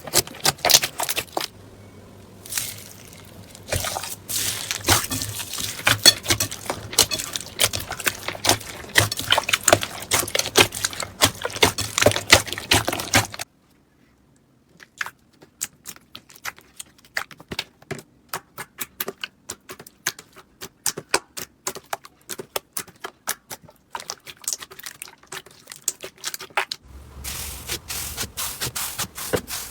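Slime being squeezed and poked by hand, making fast runs of small sharp clicks and crackles. The clicking stops for about a second a little before halfway, then resumes sparser, and grows denser again near the end.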